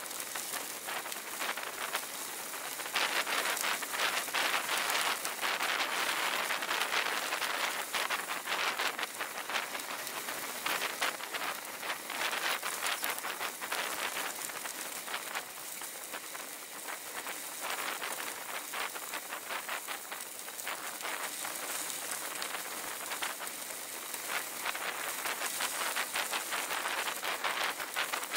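Bicycle tyres rolling over loose gravel: a continuous dense crackle and crunch of small stones, a little louder for a few seconds early on and again near the end.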